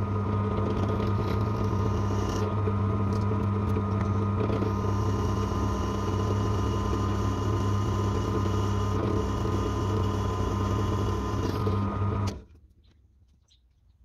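Bench drill press running steadily with a constant motor hum while its bit drills through a leaf-spring steel knife blank. The sound cuts off suddenly about twelve seconds in.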